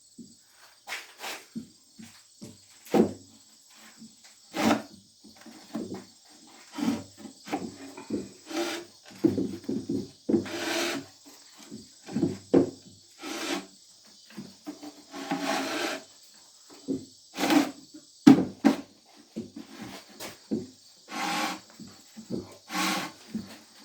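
Irregular clunks, scrapes and rubbing of wood as a heavy 12-inch pulley is shifted and worked into position by hand. Crickets chirp steadily behind.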